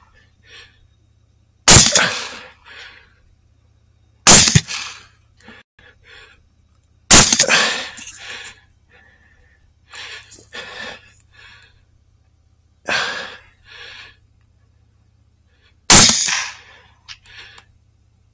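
Four loud rifle shots fired at running feral hogs: three about two and a half seconds apart starting near two seconds in, then a long gap with a quieter crack, and a fourth near the end. Each shot trails off in a short echo.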